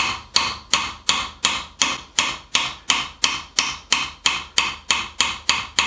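Small hammer tapping a pencil end-first into a tight-fitting hole in a wooden pencil box: light, sharp strikes in a steady rhythm of about three a second, each with a brief ring. The strikes are kept light so the pencil lead doesn't break.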